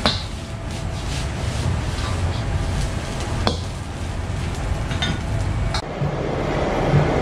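Garlic fried rice being stir-fried in a wok over a gas burner: a steady low noise from the burner under the sizzle, with a few sharp clanks of the metal ladle striking the wok. Near the end the clanking stops and a different, steadier sound takes over.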